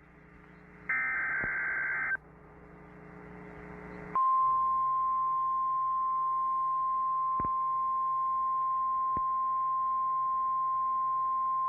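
Emergency Alert System tornado warning over FM radio: about a second in, a short burst of screechy digital data tones (the SAME header) lasting about a second, then hiss, and from about four seconds in a single loud, steady alert tone that holds unbroken.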